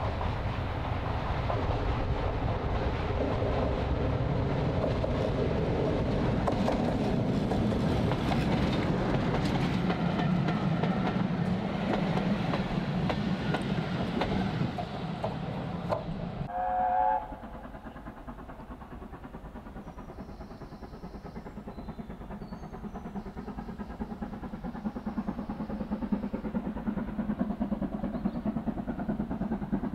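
Mainline diesel locomotive approaching and passing close with its coaches, its engine running and the wheels clattering over the rail joints. Just after halfway comes a brief horn blast, then a quieter, more distant engine running that slowly grows louder.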